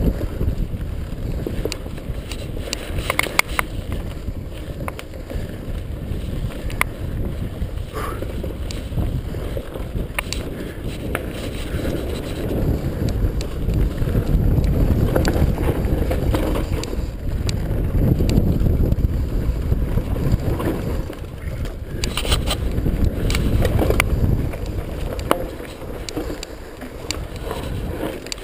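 Mountain bike ridden fast down a dirt forest trail: wind buffeting the camera microphone over the rumble of tyres on dirt, with the bike rattling and knocking sharply here and there over bumps and roots.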